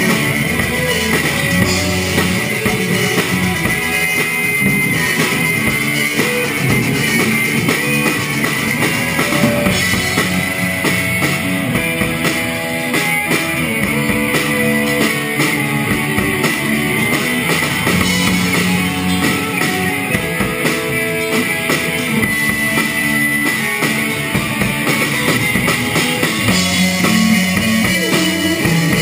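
Live rock band playing loudly: electric guitars, bass guitar and a drum kit.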